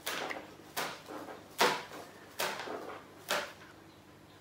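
Small plastic pigment jar and its lid being handled: five short, sharp knocks and scrapes, a little under a second apart.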